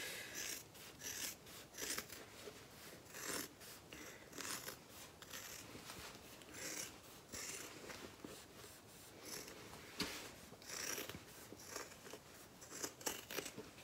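Scissors trimming the seam allowance of a sewn fabric bag lining: faint, irregular snips, many short cuts one after another.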